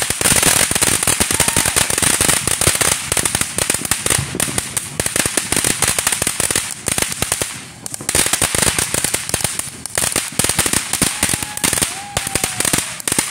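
Ground firework fountain spraying sparks with a steady hiss and a dense run of rapid crackling pops from its crackle effects. The crackling eases briefly a little past halfway, then picks up again.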